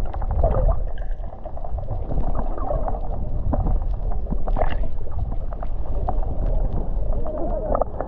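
Muffled water sloshing and gurgling with a low rumble and many small clicks, as heard by a camera in or at the surface of the sea.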